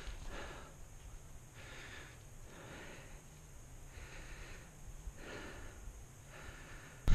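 A person breathing close to the microphone, soft breaths coming about once a second in a steady rhythm.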